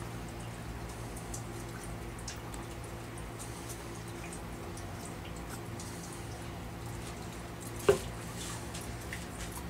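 Small clicks and handling noises as a metal can of PVC cement and a clear PVC tube are worked in the hands, over a steady low hum. One sharp knock with a brief ring comes near the end.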